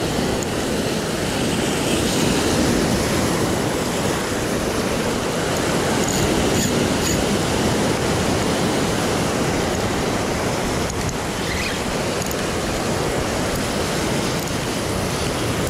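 Sea surf breaking and washing over a rocky shore: a loud, steady rush of water.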